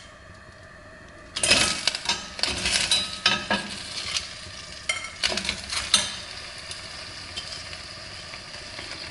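Langoustine heads and shells dropped into hot olive oil in a stainless steel pot: about a second and a half in they hit the oil with a sudden loud sizzle. Several sharp knocks of shells landing in the pot follow, and the sizzle then settles into a steady frying hiss.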